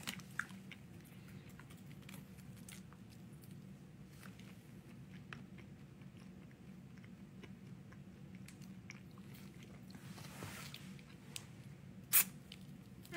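Faint mouth sounds of a person eating a soft fruit jelly: small wet clicks while chewing, a soft sucking swell, and one sharp smack about twelve seconds in, over a low steady room hum.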